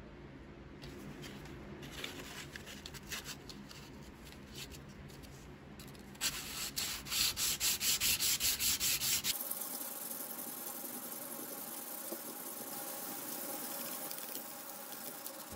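Hand scrubbing the tarnished brass face strip of an old Stanley square's wooden stock with an abrasive. Light scratchy strokes come first, then quick, loud back-and-forth strokes, about five a second, and then a steady hiss of continuous rubbing.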